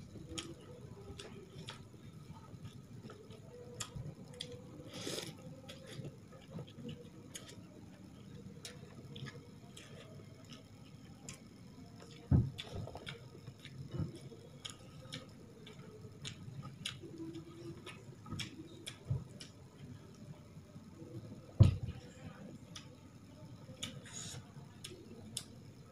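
Close-up eating sounds: chewing and lip smacking with many small wet mouth clicks as rice and side dishes are eaten by hand. Two louder dull thumps stand out, about 12 and 22 seconds in.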